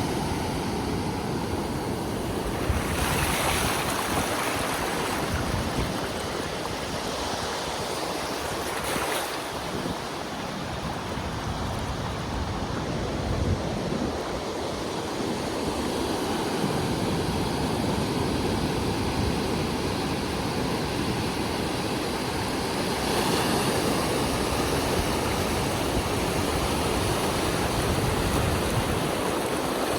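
Ocean surf breaking on the beach: a steady wash of waves that swells louder several times as breakers come in, strongest near the end.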